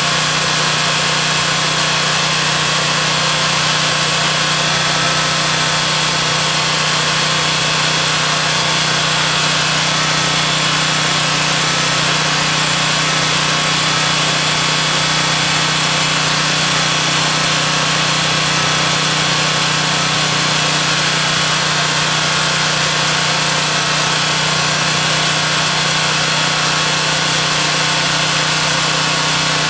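Generac 4000EXL portable generator's 7.8 hp engine running steadily on gasoline at an even, unchanging speed.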